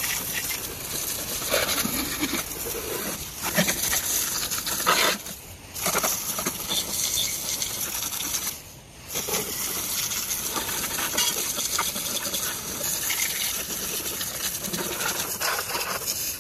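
Water from a garden hose spraying through a lawn mower deck's wash-out port, spattering and clattering against the inside of the deck. The spatter drops off briefly twice, about a third of the way in and again a little past the middle.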